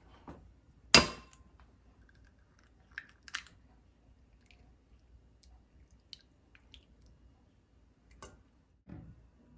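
An egg cracked sharply once against the rim of a stainless steel bowl, with a brief ring, followed by a few faint clicks of the eggshell halves as the yolk is passed between them to separate it from the white.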